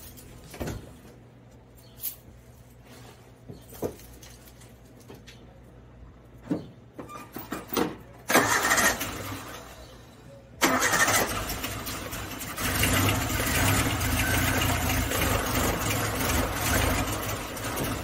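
Suzuki Samurai four-cylinder engine, its valve cover off and the rockers covered by a plastic bag, being started: after a few knocks, a first burst of starting about eight seconds in cuts off after about two seconds, then the engine starts again and keeps running, louder from about twelve seconds.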